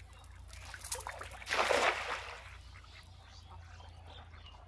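Cast net thrown out over shallow water: a brief rustle of the net, then a splash as it lands, about a second and a half in, lasting about half a second.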